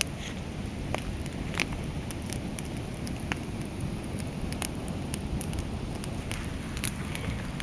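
Light rain pattering: a steady hiss with scattered soft taps.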